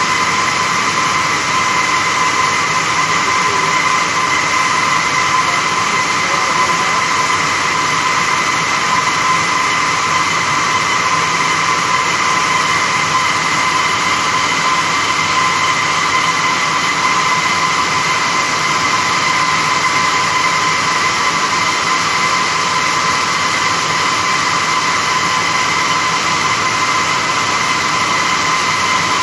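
Circular looms weaving plastic-tape tube fabric for sacks, running at a steady speed: an even mechanical din with a constant high whine.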